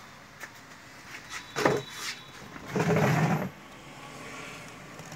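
A sharp knock, a lighter knock, then a brief muffled scuff: handling noise from moving an industrial sewing machine around.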